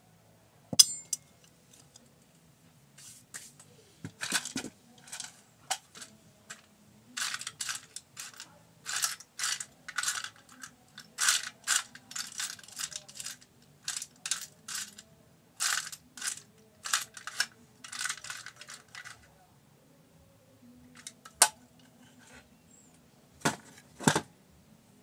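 Hand work with small metal tools and parts at the needle plate and bobbin area of a Singer portable sewing machine during cleaning: short scraping strokes and metallic clicks. There is a sharp ringing clink about a second in, quick clusters of scraping in the middle, and a few sharp clicks near the end.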